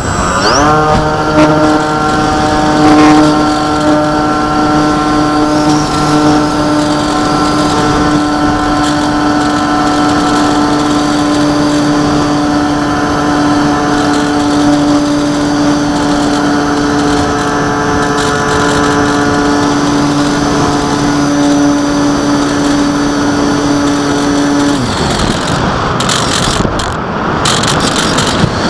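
A small aircraft's motor running up in pitch in the first second, then holding a steady high-pitched drone. About 25 seconds in the motor note stops and only wind rushing remains.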